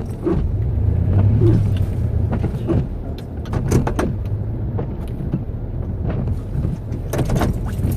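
Ford F-150 pickup engine running hard under load as it yanks a stuck flatbed tow truck through snow on a tow strap. Scattered clicks and rattles sound over the steady engine note.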